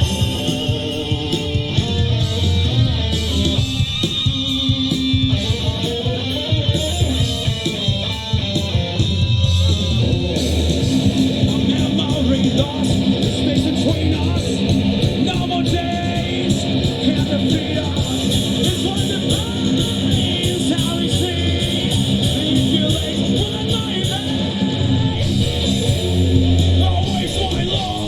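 A rock band playing live, with electric guitar over bass and drums; the music eases to a lighter, sparser passage for a few seconds early on before the full band comes back in.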